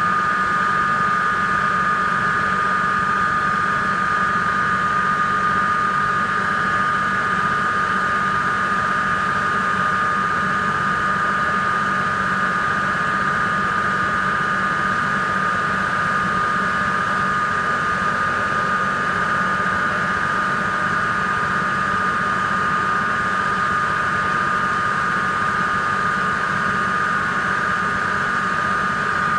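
Krantz 120 cm centrifugal extractor spinning during a test run: a steady high whine with a low hum beneath it, unchanging throughout.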